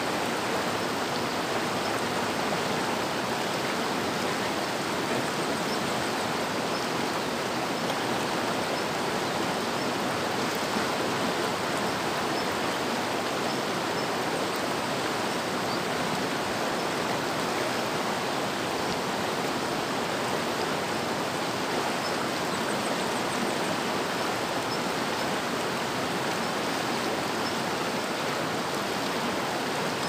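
Mountain river rushing steadily over rocks, a continuous even wash of running water.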